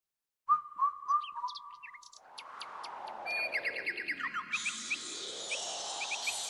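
Small birds chirping and trilling in short, quick calls. About two seconds in, a whooshing hiss sweeps down and back up in pitch. From about halfway, a steady high hiss runs under occasional chirps.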